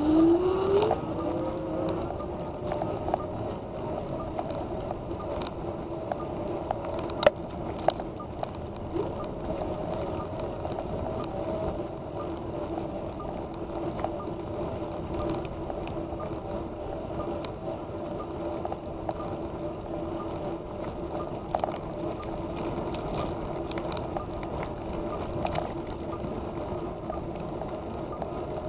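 Electric bicycle motor whining up in pitch as the bike gets going, then holding a steady hum over wind and tyre rumble, with occasional sharp knocks from the bike, the loudest about seven seconds in.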